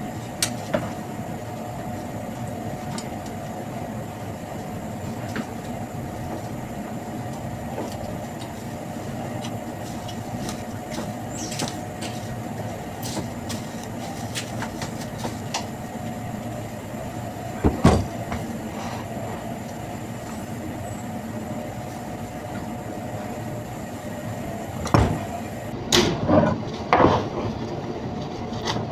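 Steady hum of commercial refrigeration equipment in a butcher's cold area, with a held mid-pitched tone. A sharp knock comes about eighteen seconds in and a cluster of thumps and knocks near the end as a whole lamb carcass is taken off its hook and handled.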